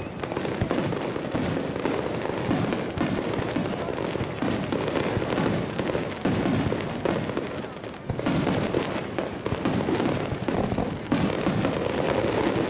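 Fireworks display: shells bursting and crackling one after another in a dense run, with a short lull about eight seconds in.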